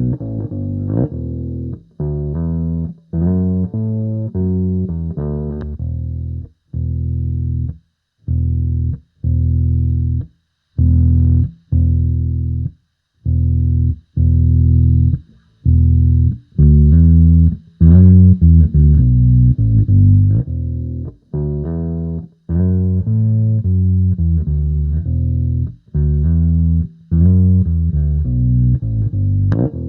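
Electric bass played through a Sonicake B Factory bass preamp: a riff in short phrases of plucked notes with brief pauses between them. The tone is darker for a stretch early on and brighter again about halfway.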